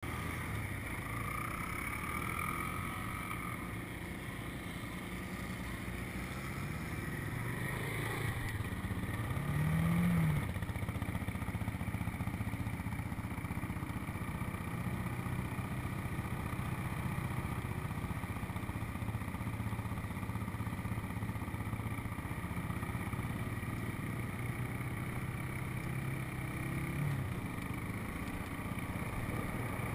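Four-wheeler (ATV) engine running while riding, steady for most of the time, with a brief rev about ten seconds in.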